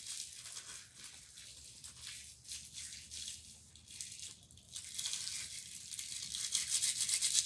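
Close-up rustling and scratchy rubbing as hands handle a picture book's paper pages near the microphone. It grows louder and quicker from about five seconds in.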